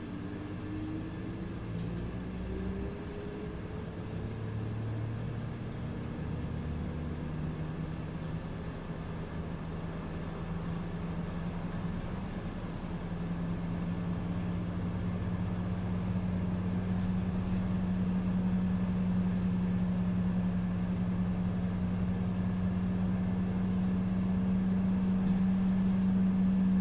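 Sendai city bus driving, heard from inside the passenger cabin. A whine rises in pitch over the first few seconds as it picks up speed, then a steady low engine drone grows gradually louder.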